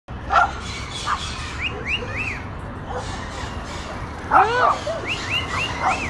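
Wild lorikeets calling: quick runs of short, high, arched chirps, with a louder, lower call about four seconds in and another near the start.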